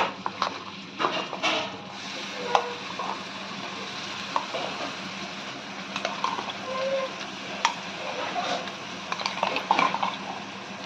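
Wet ground masala paste of tomato, garlic, onion and ginger sizzling as it hits hot mustard oil and fried onions in a kadai, with a steady hiss. A spatula stirs through it, clinking and scraping against the pan now and then.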